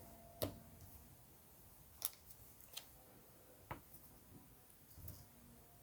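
Near silence broken by about five short, faint clicks and taps of trading cards being handled and set down.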